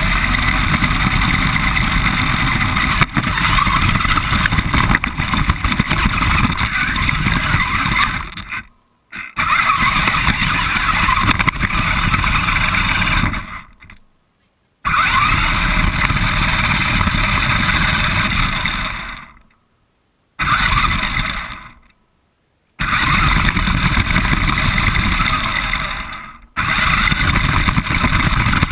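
Radio-controlled car driving with the camera riding on it: a loud, steady rumble of motor and chassis noise. It fades out to silence about five times and comes back abruptly each time.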